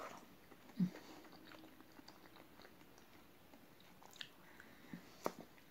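Quiet close-miked mouth sounds of biting and chewing soft gelatin jelly cubes off a skewer, with faint wet smacks and clicks. The sharpest click comes near the end, and a brief low hum comes about a second in.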